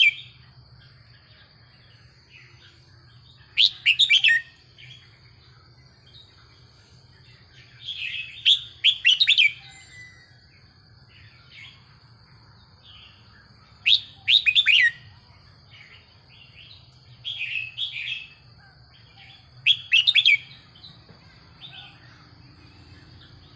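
Red-whiskered bulbul singing short, loud phrases of quick, falling whistled notes, one every few seconds, with some phrases softer than others.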